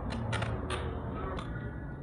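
Hands working adhesive tape and the kite's paper: a few short crackles and clicks in the first second and a half, over a steady low background rumble.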